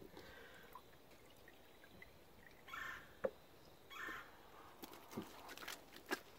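Faint dripping and splashing of soapy water as a wet beaver hide is rubbed and lifted in a plastic tub. Two brief swishes come around the middle, and small sharp drips or clicks follow near the end.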